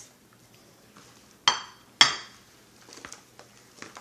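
A ceramic plate clinks sharply twice, about half a second apart, each with a brief ring. Soft rustling follows near the end as a gloved hand starts mixing the rice salad in a plastic bowl.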